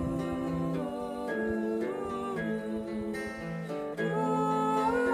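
Acoustic guitar being played, with a voice singing along in long held notes that step from one pitch to the next, rising a little near the end.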